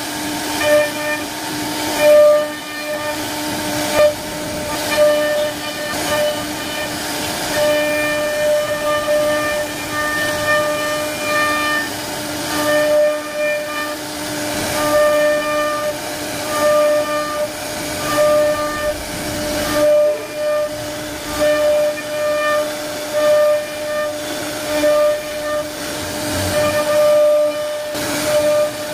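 CNC router spindle running with a steady high whine while its bit carves a relief pattern into a wooden board, over the hiss of cutting. The whine swells and fades irregularly every second or so.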